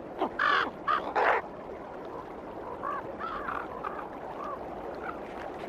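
Crows or ravens cawing, with a few loud harsh calls in the first second and a half and then a run of fainter, shorter caws.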